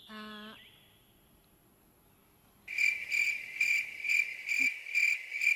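Cricket chirping sound effect, a steady high pulsing chirp about twice a second that starts suddenly and cuts off sharply: the comic cue for an awkward silence with no answer.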